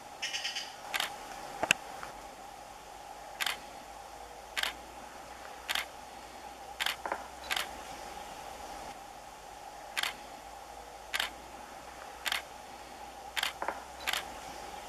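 Robust Woodpecker knocking its bill on a tree trunk: sharp, separate knocks roughly once a second, with a couple of quick double knocks. These are its territorial knocks.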